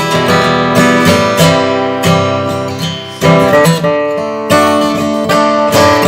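Gibson Hummingbird square-shoulder dreadnought acoustic guitar strummed, chords ringing out at about two strokes a second with changing chords.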